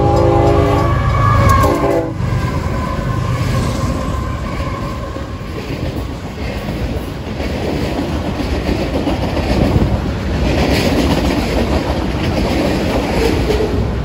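Union Pacific freight locomotive's multi-note air horn sounding for a grade crossing, a long blast that ends about a second in and a brief one just after. Then the freight cars roll past with steady wheel-on-rail noise and clicking over the rail joints.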